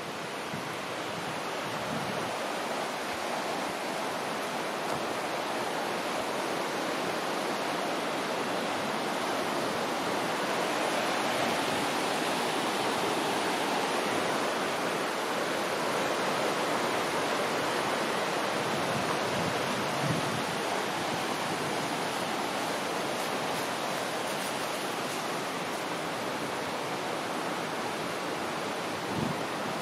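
Steady rushing of a mountain stream and waterfall, growing a little louder over the first dozen seconds.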